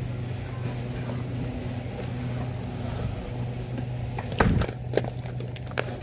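Steady low hum of a large warehouse store, with one loud sharp handling noise about four and a half seconds in and two smaller ones after, as a bag of whole-bean coffee is grabbed from the shelf.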